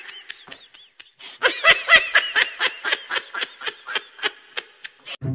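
Laughter: a short giggle, then a long run of rhythmic ha-ha pulses, about five a second, dying away near the end.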